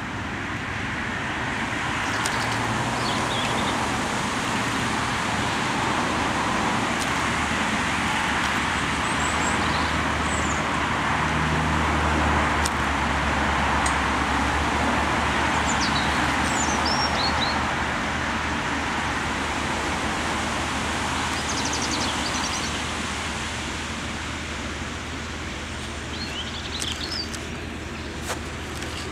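Class 09 diesel shunter's English Electric six-cylinder diesel engine working as the locomotive moves along the track; it swells to its loudest about halfway through, then eases off.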